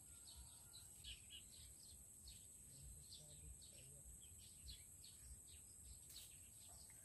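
Faint bird chirping: short, quick chirps repeating about three times a second over a thin, steady high hiss.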